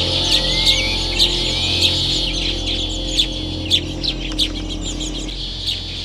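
Baya weaver birds chirping: rapid, sharp chirps several times a second, with a rising whistled note in the first two seconds.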